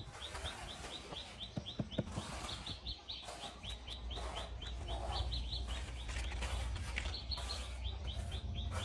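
A bird chirping in a quick, even series of short high chirps, about four a second, over a low background rumble, with a few light knocks about two seconds in.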